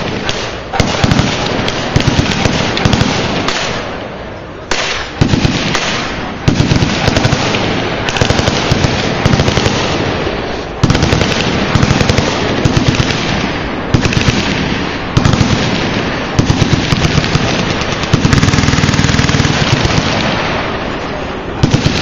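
Several machine guns firing full-auto on a firing line at once. Long rapid bursts overlap into near-continuous gunfire, with new bursts starting every second or two and a brief lull about four seconds in.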